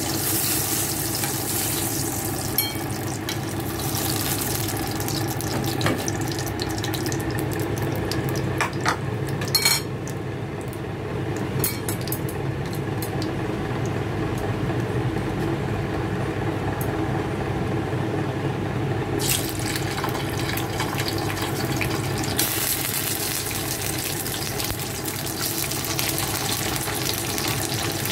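Hot oil sizzling in a nonstick frying pan as eggplant slices and then pork-stuffed green pepper pieces fry. A few clicks of a wooden chopstick against the pan come about a third of the way in. The sizzle then thins out and comes back strongly about two-thirds of the way through.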